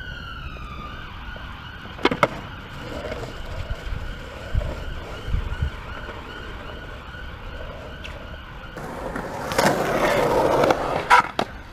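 A distant emergency-vehicle siren wails, its pitch falling in the first second and then wavering faintly. About nine seconds in, a skateboard rolls past close by on hard ground for a couple of seconds, followed by a couple of sharp board clacks.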